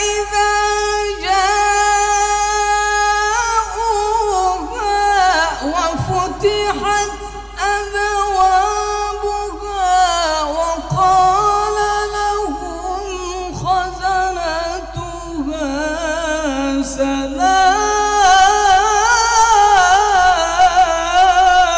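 A male qari reciting the Quran (tilawat) in a slow, melodic chant, drawing out long held notes that waver and glide up and down in pitch, with a few short breath pauses. The voice climbs higher and grows louder near the end.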